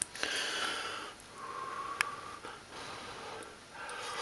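A person blowing on and slurping a spoonful of hot carrot stew to taste it, with a sharp clink about two seconds in and another at the end.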